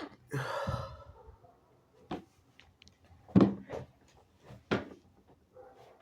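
The breathy tail of a wet sneeze fades out in the first second. It is followed by a few short, sharp knocks or clicks, about two seconds in and again around three and a half and nearly five seconds in.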